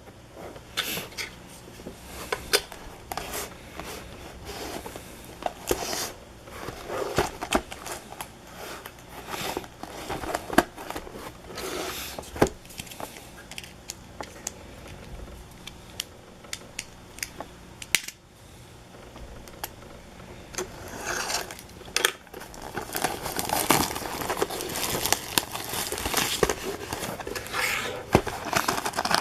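Trading-card packs being torn open by hand: foil wrappers crinkling and tearing, with scattered clicks and taps as cards and wrappers are handled. It gets busier near the end.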